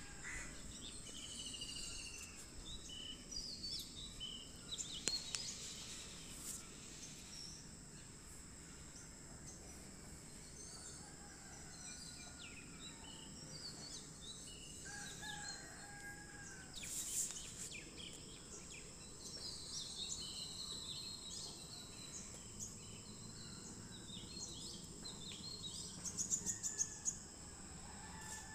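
Birds chirping and calling over a steady high-pitched whine, with a few sharp clicks from small plastic parts being handled: one about two-thirds of the way through and a quick run of clicks near the end.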